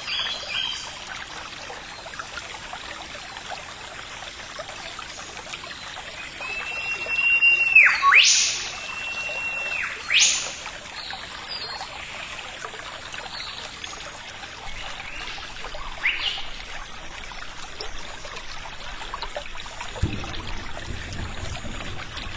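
Steady rushing of running water, with a quick run of five short high notes at the start and two loud whistled calls about eight and ten seconds in, each a held note that breaks into a fast swoop down and up; a few fainter calls follow, and a low rumble comes in near the end.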